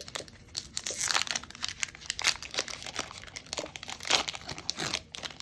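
Foil booster-pack wrapper being torn open and crinkled in the hands: a run of irregular sharp crackles and rustles.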